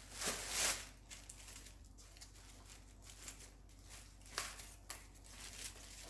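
Faint rustling and crinkling of a plastic bag as gloved hands handle a bundle of green onions lying on it, in a few short bursts.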